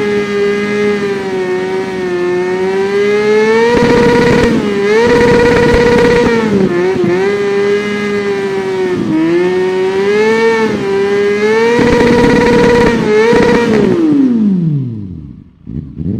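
Kawasaki Ninja 400 parallel-twin motorcycle engine revving hard, held at a high-pitched whine with repeated small blips up and eases back. Near the end the revs fall away steadily as the throttle is released.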